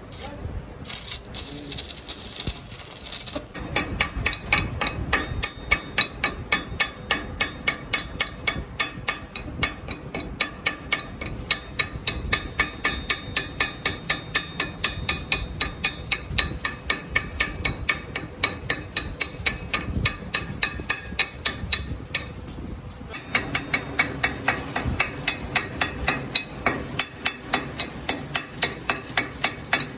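Repeated hammer blows on metal during a truck axle repair, a steady run of two to three strikes a second with a ringing edge. A short hiss comes before the hammering starts.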